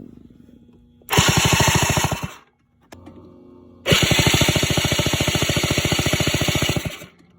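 Electric starter cranking the 2004 Polaris Sportsman 90's engine in two bursts, a short one and then a longer one of about three seconds, a fast even chatter. The spark plug is out for a spark test, and the engine does not fire.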